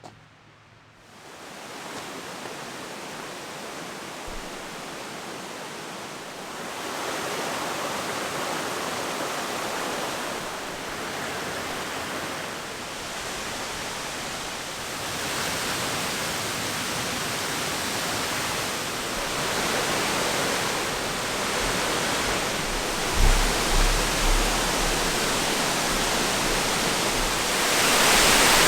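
Waterfall rushing, a steady wash of falling water that grows louder in steps and is loudest near the end, with a few low thumps on the microphone about two thirds through. The falls are Amicalola Falls.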